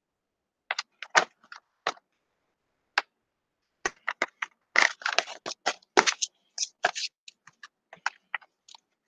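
Typing on a computer keyboard: irregular key clicks, a few scattered at first, then a quick run of them from about four to seven seconds in, with dead silence between strokes.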